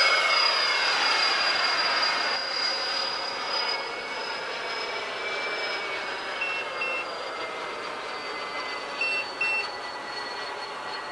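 Whine of the Freewing A-10 model jet's twin electric ducted fans, easing slightly lower in pitch and fading as the plane flies away and climbs. Two pairs of short beeps come through, about six and a half and nine seconds in.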